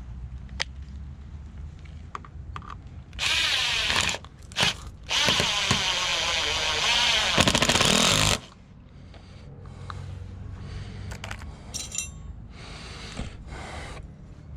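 Power drill running in two bursts, a short one and then a longer one of about three seconds, its motor pitch wavering under load as it drives screws. Light handling clicks follow.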